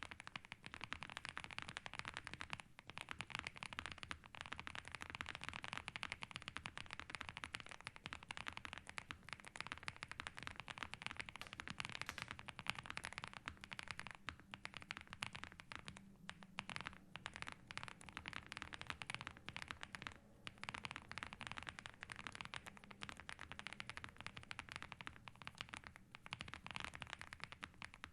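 Continuous fast typing on a Meletrix Zoom75 mechanical keyboard with Vertex V1 switches and its regular, non-ceramic keycaps: a dense, unbroken stream of key strikes.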